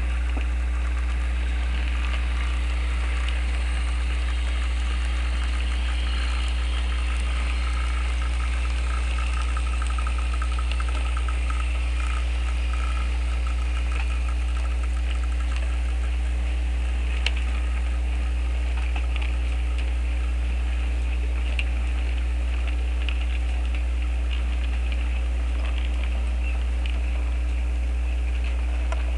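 A steady low hum with faint ticking above it, from an HO scale model freight train running slowly on the layout. There is one sharper click a little past the middle.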